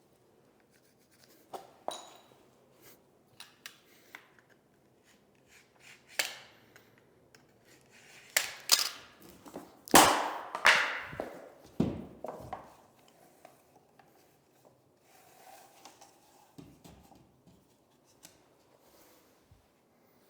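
Scattered knocks, clicks and rubbing from handling and fitting vinyl click-flooring planks, with a busier run of sharp knocks about halfway through.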